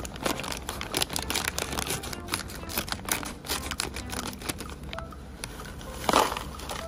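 Scissors snipping through a shiny plastic bag of tortilla chips, the bag crinkling with each cut. A little after six seconds the chips spill out into a plastic bowl with a short, loud rattle.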